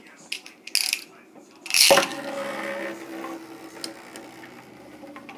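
Beyblade spinning tops on a bare wooden table: a few short clicks and rasps, then about two seconds in a loud ripping launch as a second top is ripcorded onto the wood, followed by a steady whirring hum of the spinning tops that fades.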